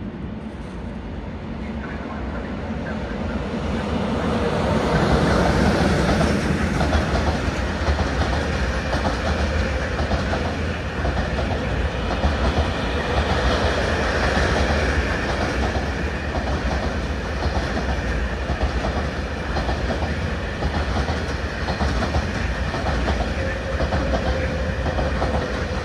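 Freight train passing through the station, wheels clattering rhythmically over the rail joints. It grows louder over the first five or six seconds, then stays loud and steady as the wagons roll by.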